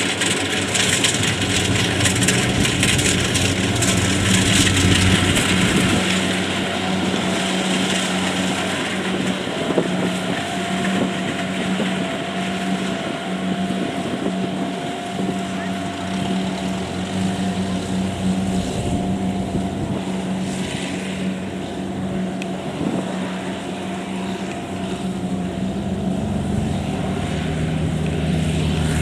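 Kubota DC70 combine harvester's diesel engine running steadily under load while cutting and threshing rice. A thin steady whine joins about a third of the way in and fades out near the end.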